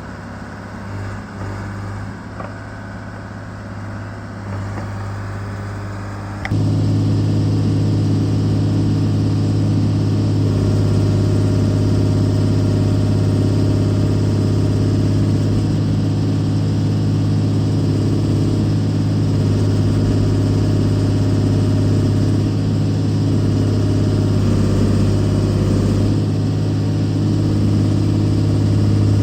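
Case 125B excavator's diesel engine running steadily with a low hum, jumping suddenly louder about six seconds in and holding there.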